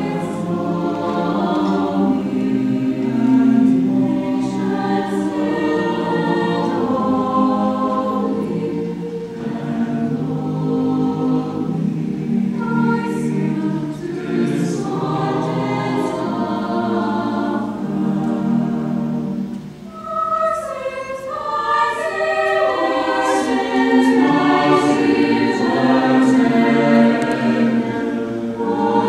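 Mixed choir of boys' and girls' voices singing a sacred piece in harmony. The sound drops briefly about two-thirds through, then the voices return fuller and louder.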